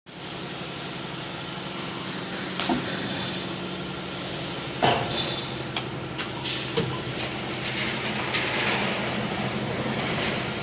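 Woodworking edge sanding machine running: a steady motor hum under a hissing whir, with a few sharp knocks. The hiss turns brighter about six seconds in.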